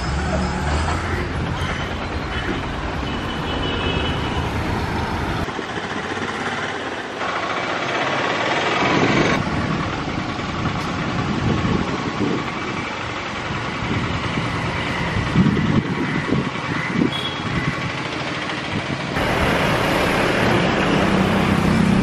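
Roadside traffic noise: vehicle engines and road noise over a general street din, with low engine rumble at first. The sound changes abruptly several times, about five, seven, nine and nineteen seconds in, as one short outdoor clip cuts to the next.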